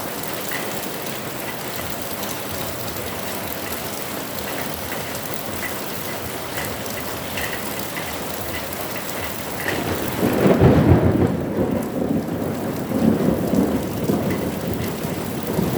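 Heavy rain falling steadily. About ten seconds in, a loud low rumble of thunder begins and lasts several seconds.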